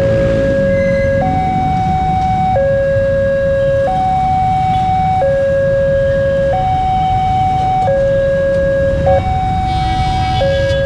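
Railway level-crossing alarm sounding a two-tone hi-lo siren, switching between a lower and a higher tone about every 1.3 seconds, over a steady low rumble.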